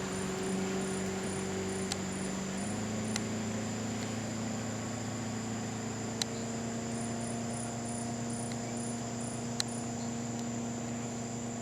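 Rainforest insects calling: a steady high-pitched drone with two runs of short rhythmic chirps at about three a second. Under them runs a low steady hum that shifts pitch a few seconds in, and a few sharp clicks stand out.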